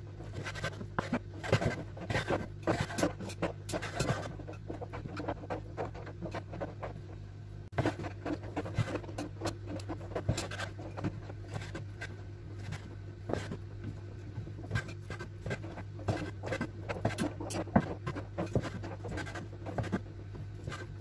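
Kitchen knife cutting bacon and smoked chicken roll on a wooden cutting board: runs of quick taps as the blade goes through and strikes the board. A steady low hum runs underneath.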